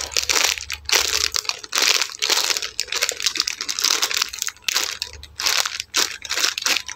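Clear plastic bag crinkling as hands squeeze and turn a foam squishy toy sealed inside it: an uneven run of short crackles.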